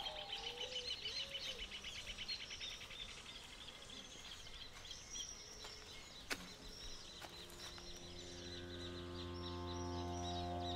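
Birds singing: a fast, even trill in the first few seconds, then scattered high chirps. A single sharp click comes about six seconds in, and a low, steady drone of sustained tones, likely the film's score, enters near the end.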